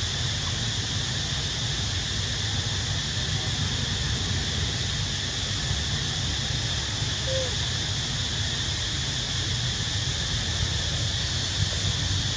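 Steady outdoor background noise: a constant high hiss over a low rumble, with one brief falling squeak about seven seconds in.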